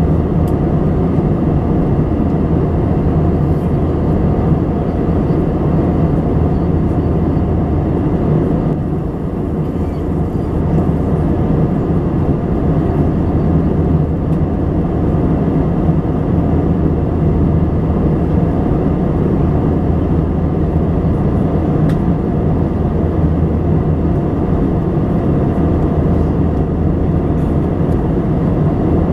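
Steady cabin drone of an Airbus A320 in flight: jet engine and rushing airflow noise heard from inside the passenger cabin, low and even, easing slightly for a moment about nine seconds in.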